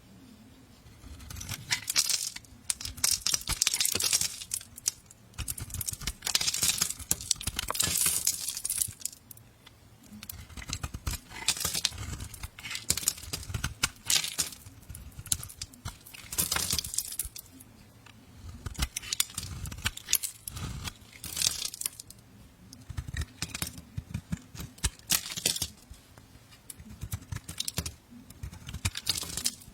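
Knife cutting and carving soap: repeated crisp scraping, crunching strokes, each a second or two long, with small clicks between them.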